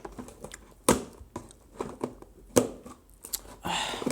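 A cardboard shipping box being handled and opened: two sharp knocks, then a short rustle of tearing or crinkling packaging near the end.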